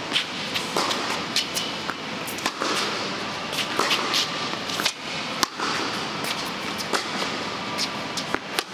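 Tennis balls being struck and bouncing during a drill: a string of sharp pops at irregular intervals, the loudest about five and a half seconds in, over a steady hiss of background noise.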